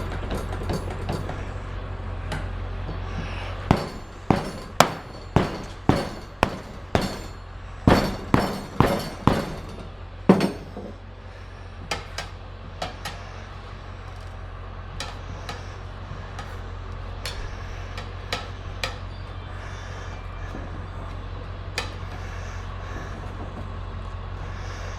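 A run of about a dozen sharp knocks, roughly two a second, with tools working on a motorcycle's rear tyre to break its bead. A few fainter clicks come at scattered moments afterwards, over a steady low hum.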